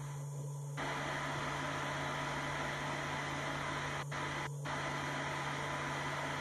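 Handheld hair dryer running: a steady rush of air over a low motor hum. The airflow gets louder about a second in, with two brief dips near the middle.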